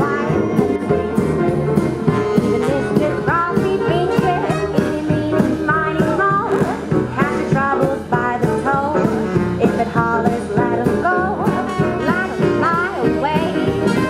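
Live jazz band: a woman singing over piano and a drum kit keeping a steady beat.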